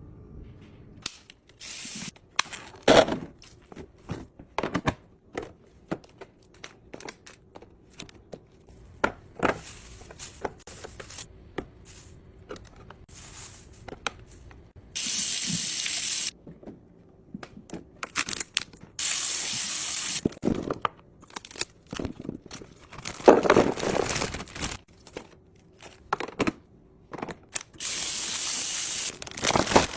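Fridge restocking handling sounds: containers and packages tapped and knocked as they are set down and arranged, with several stretches of steady hiss lasting a second or two each.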